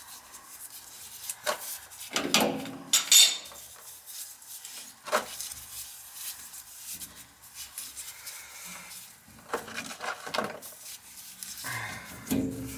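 Tools and metal parts being handled: irregular knocks, clinks and scraping, loudest about two to three seconds in, with a few more knocks later.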